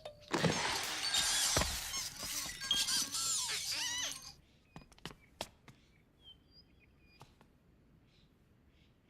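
Video game sound effects: a loud, clattering crash-like burst laced with many short whistling glides, lasting about four seconds, then scattered light clicks and a few faint short tones.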